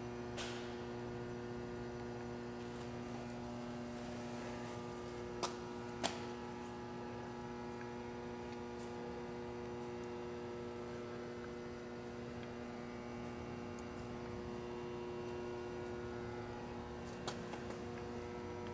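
Cracker sheeter's electric motors and drives running with a steady hum made of several even tones. Two sharp clicks come about five and six seconds in, and a smaller one near the end.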